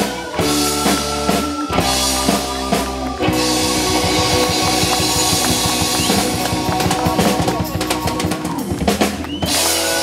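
Live rock band (electric guitar, bass, keyboard and drum kit) playing the song's close: chords struck together on the beat, then a long held chord over a fast drum roll, and a last hit near the end.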